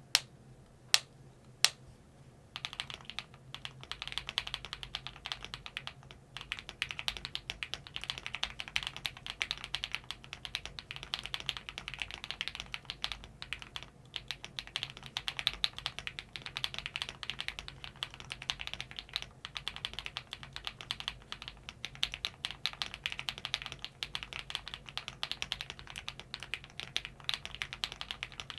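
Typing on a freshly built 60% mechanical keyboard with lubed KTT linear switches, an aluminium plate and a 3D-printed case: three single key strikes in the first two seconds, then steady fast typing.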